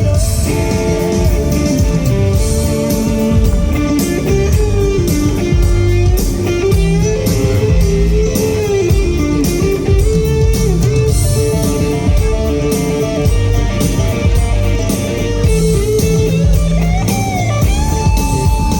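Live band playing an instrumental break in a pop ballad: a guitar carries the melody over bass and drums.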